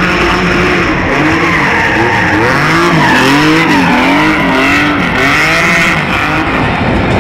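TVR sports car doing stunt spins: its engine revs up and down again and again, quick rises and falls in pitch that are strongest in the middle, over the steady squeal and scrub of tyres spinning in smoke.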